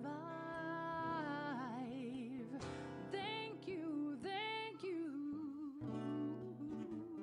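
A woman singing long held notes with vibrato, accompanied by her own acoustic guitar.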